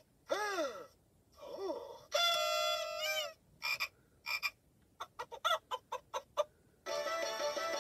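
Clic the ABC 123 Laptop toy's speaker playing a string of cartoonish electronic sound effects: two swooping tones that rise and fall, a held tone that wobbles at its end, a run of short chirping blips, then a short musical jingle starting near the end.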